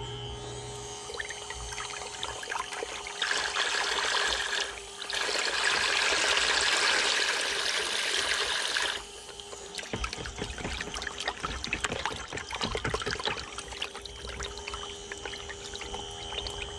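A small 12-volt, 500-gallon-per-hour bilge pump is running submerged in a bucket of water, with a steady faint motor hum. It is being flushed of clogging grease and debris. Its outlet jet churns and splashes the water, rushing loudly for several seconds before dropping sharply to lighter splashing about nine seconds in.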